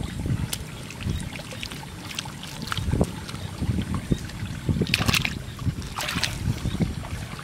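Hands sloshing and scooping in shallow muddy water and squelching wet mud, in irregular strokes. Two sharper splashes come about five and six seconds in.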